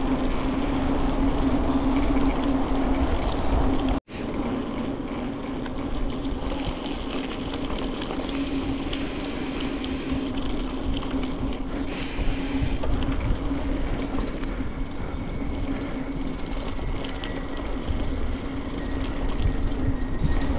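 Heavy bicycle's tyres rolling on the road with a steady low drone, over rumbling wind on the microphone. The drone is the sound of a bike that does not roll easily. The sound cuts out briefly about four seconds in.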